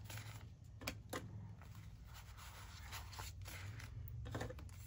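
Faint rustling of paper banknotes being handled, with a few soft clicks as stacks of bills are set into a clear plastic tray.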